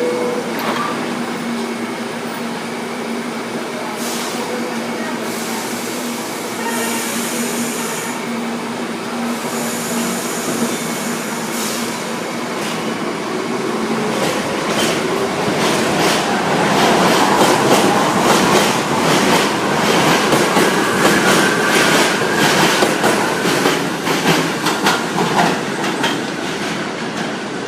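New York City subway train on the BMT West End Line tracks. A steady hum with level tones gives way, about halfway in, to louder running noise and a quick, regular clatter of wheels over rail joints.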